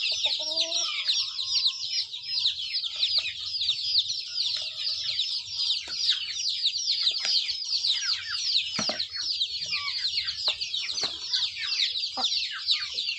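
A flock of chicks peeping nonstop in a dense, high-pitched chorus of short falling chirps, with a lower clucking call from an adult chicken in the first second.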